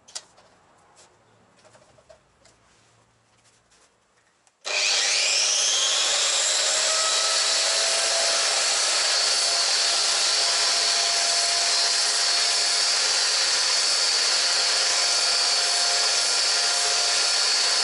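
Angle grinder fitted with a sandblasting attachment starting suddenly about four and a half seconds in, its whine rising briefly as it spins up, then running steadily as it blasts sand into a steel barrel to clean old motorcycle cylinders.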